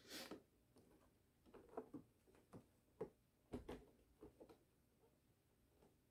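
Faint, near-silent handling of cardboard figure boxes on a table: a run of light taps and small knocks as two boxes are turned around, dying out after about four and a half seconds. A brief breathy hiss opens it.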